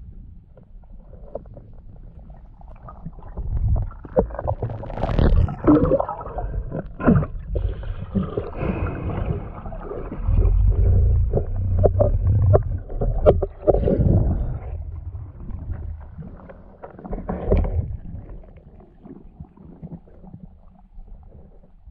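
Muffled underwater water noise from a spearfisher's camera: irregular rushing and gurgling swells with scattered knocks as the diver moves through the water, loudest in the middle.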